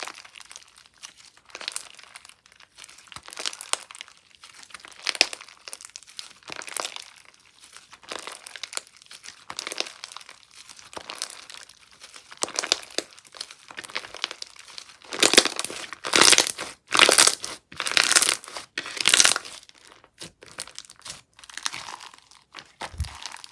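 Slime being squished and stretched by hand, giving a run of crinkly, crackling pops, louder and denser about two-thirds of the way through.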